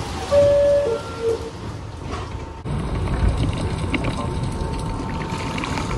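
R62A subway car's two-tone door chime, a higher tone then a lower one, over heavy rain falling on the platform outside the open doors. After a cut, a low rumble with a faint steady hum and the hiss of rain continue.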